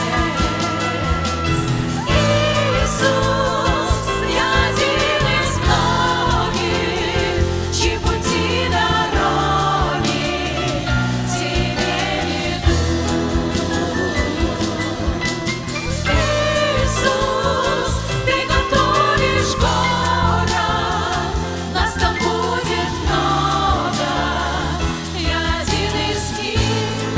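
Christian worship song: a vocal group singing together over instrumental accompaniment with a steady bass line.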